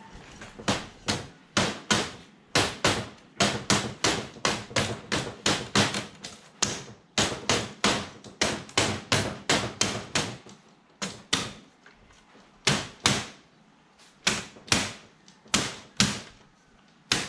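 Hammer blows tapping an aluminium checker-plate tray into a folding chair's aluminium frame to persuade a tight fit. The sharp strikes come in quick runs, about two to three a second, with a short pause midway.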